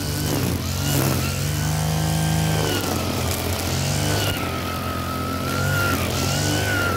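Brush cutter's small engine running at high speed, its whine wavering and dipping as the throttle is eased and opened. The cutting head hisses through grass as it is swung.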